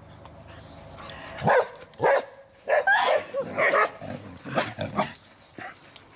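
Dogs barking and yipping excitedly at play: a quick run of loud barks starts about a second and a half in and dies down after about five seconds into fainter yips.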